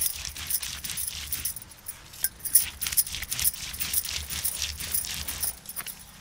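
Stone roller (varvanta) grinding wet chana dal and chilli paste on a flat stone slab (pata), rubbed back and forth in repeated strokes with stone scraping on stone. Glass bangles on the grinding wrists jingle and clink with each stroke.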